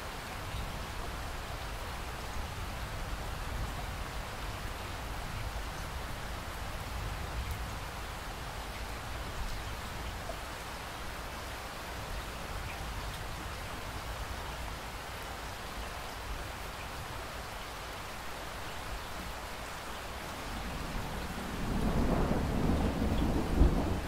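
Steady rain falling, with a low roll of thunder swelling up near the end.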